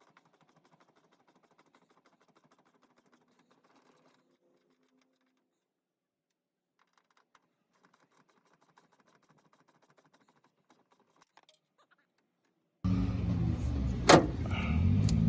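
Faint rapid metallic clicking of a wrench taking the 9/16 nuts off a Ford starter solenoid's terminals. About thirteen seconds in, loud vehicle engine noise cuts in abruptly, with a sharp click a second later.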